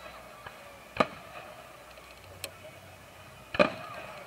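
Aerial fireworks shells bursting, each a sharp bang: one about a second in and a louder one near the end, with fainter pops between.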